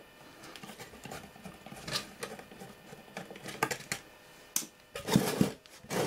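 Scattered light clicks and knocks from a screwdriver and hands working the case of a radio control panel to open it, with a louder clatter about five seconds in.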